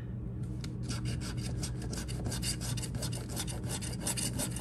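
The edge of a card scraping the coating off a scratch-off lottery ticket in rapid back-and-forth strokes.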